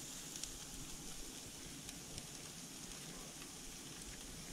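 Faint, even sizzling with small scattered crackles: bluefish fillets just laid on a grill over burning hickory wood.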